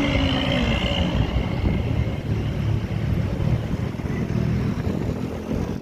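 A large intercity bus passing close by in roadside traffic, its engine rumbling over tyre noise, with a high whine that fades over the first two seconds.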